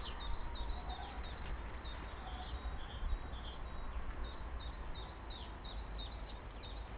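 Small songbird calling: a long run of short, high chirps, each sliding down in pitch, repeated evenly about three times a second.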